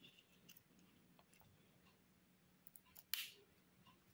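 Near silence with a few faint ticks and one short, sharp click about three seconds in, from dead orchid roots being trimmed.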